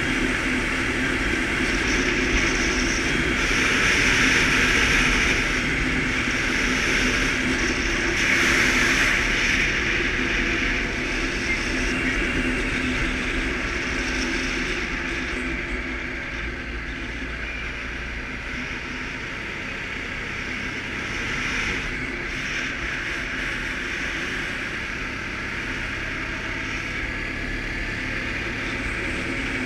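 Suzuki KingQuad ATV engine running steadily under way, with a broad rushing noise over it. The rush swells briefly a few seconds in and again near nine seconds, then eases slightly.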